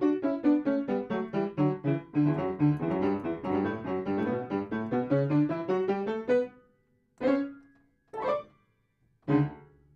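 Background piano music: a quick run of notes that stops about six and a half seconds in, followed by three single struck chords about a second apart, each left to ring out.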